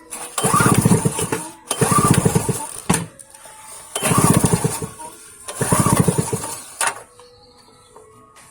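Small petrol generator engine turned over by its recoil pull-start, four pulls of about a second each, cranking without catching. It has no fuel in it yet and shows no spark.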